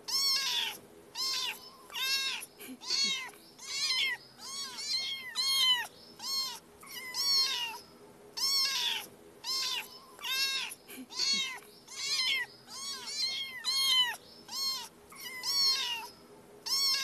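Young kitten meowing over and over: short, high-pitched mews that each rise and fall in pitch, coming about one or two a second without a break.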